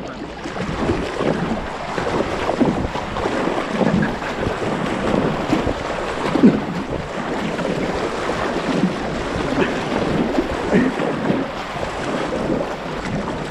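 Inflatable kayak paddled at full speed: water splashing and gurgling along the hull and off the paddle blades, with wind noise on the camera microphone.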